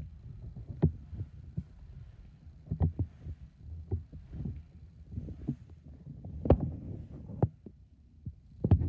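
Irregular low thumps and knocks from someone walking across a tiled floor while holding the camera: footsteps mixed with handling bumps, some sharper than others.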